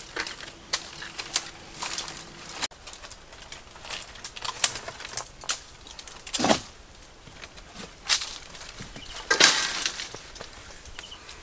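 A bundle of dry branches rustles and crackles as it is carried, with footsteps crunching over dry leaves and rocks. There is a louder rustling crash past the middle and another, the loudest, near the end.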